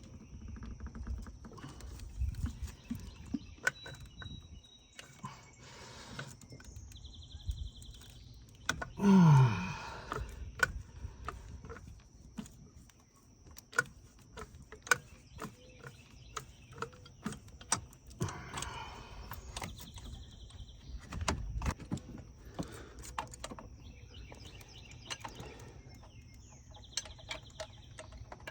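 Scattered sharp clicks and clinks of hand tools on metal while the RX-8's thermostat housing bolts are worked loose. About nine seconds in there is one loud, low sound that falls in pitch over about a second.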